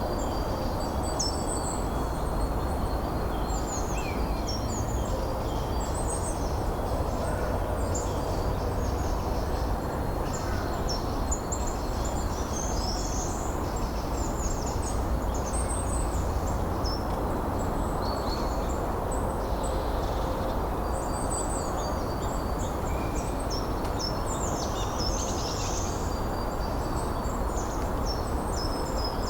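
Wind blowing steadily, with many birds singing over it in short, overlapping high chirps and trills.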